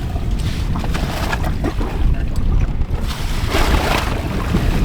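Wind buffeting the microphone over waves washing against a sailboat's hull, with a louder rush of water about three and a half seconds in.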